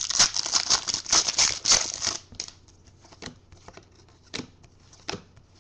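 A foil trading-card pack wrapper being torn open and crinkled for about two seconds, then a few soft clicks as the cards are flicked through one by one.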